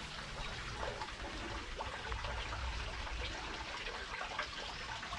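A steady wash of water: fine patter and trickling, with no single event standing out.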